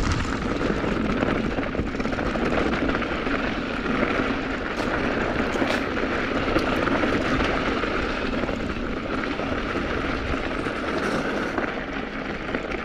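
Mountain bike rolling downhill over rocky singletrack: a steady rush of wind on the camera microphone and tyre noise, with a few light knocks and rattles from the bike.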